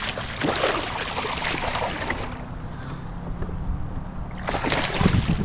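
Hooked smallmouth bass thrashing and splashing at the surface during the fight, in two noisy bursts: one over the first two seconds and a shorter one near the end. A faint steady low hum runs underneath.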